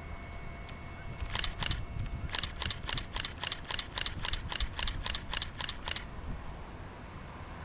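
Camera shutter firing in continuous burst mode: two quick frames, then a rapid run of about fifteen clicks at roughly four to five a second that stops suddenly.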